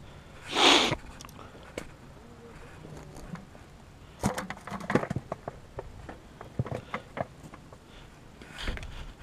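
Handling noise from fishing gear: a short rush of noise about half a second in, then a run of sharp clicks and knocks from about four seconds in as the bucket and tackle bag are handled, and another brief rush near the end.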